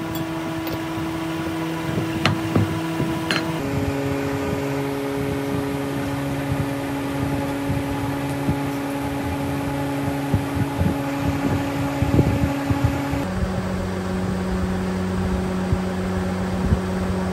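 Steady machine hum in a sand-casting foundry, its pitch jumping to a new note twice. Over it come a few sharp knocks and scrapes from the sand mould being tamped and cut by hand.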